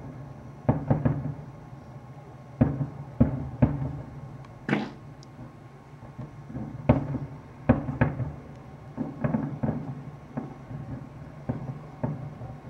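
Aerial firework shells bursting at a distance: a string of about a dozen sharp booms at irregular intervals, some in quick pairs.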